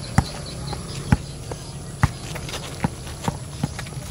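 Basketball dribbled on an asphalt court: about six sharp bounces, roughly one a second at first and quickening to two or three a second near the end.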